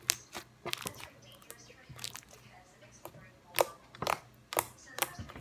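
Thick glossy slime worked by hand, giving irregular sharp wet clicks and pops, a few a second, the loudest near the end.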